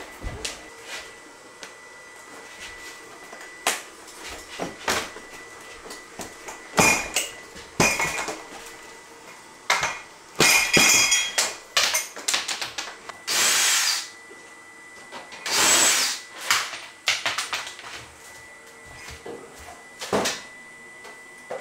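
Old kitchen cabinets and ceiling trim being pried loose and taken down: irregular knocks, creaks and squeaks of wood and nails, with two short runs of a cordless drill backing out screws midway through.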